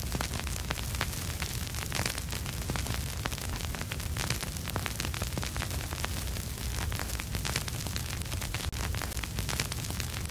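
Vinyl record surface noise with no music playing: dense crackle and pops over a steady hiss and a low rumble.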